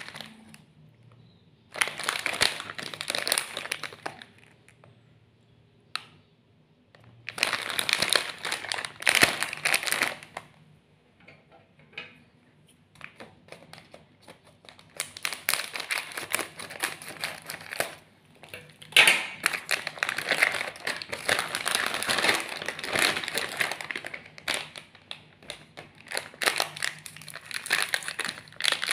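Plastic snack wrappers crinkling as a multipack is handled and opened, in three stretches of rustling with short pauses between them.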